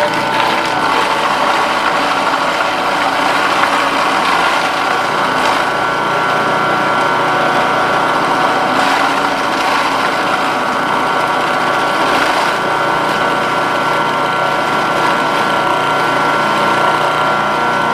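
Food processor motor running steadily at full speed, its blade churning soft butter and chives, with a steady whine over the noise.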